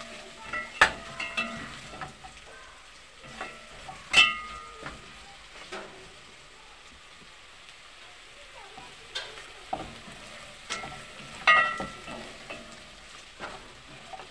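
Beef, onions and garlic frying with a soft sizzle in a granite-coated pot while a wooden spoon stirs them, scraping against the pot. Several sharp knocks of the spoon on the pot ring briefly, the loudest about a second in, about four seconds in and again later.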